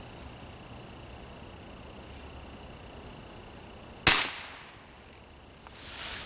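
A Ruger Air Hawk break-barrel spring-piston pellet rifle fires once about four seconds in: a single sharp crack with a short fading tail.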